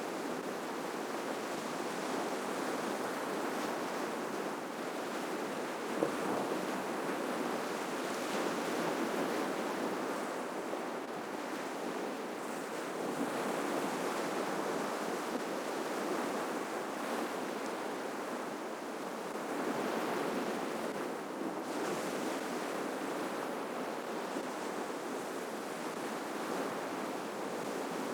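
Ocean surf breaking and washing on the shore: a steady rush that swells and eases every few seconds as each wave comes in, with a brief click about six seconds in.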